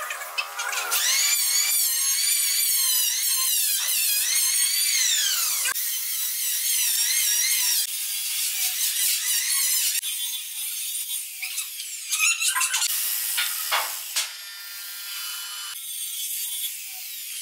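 Nakawa electric mitre saw running and cutting through wood, its high whine wavering up and down, with several separate cuts and short sharp knocks about two thirds of the way through.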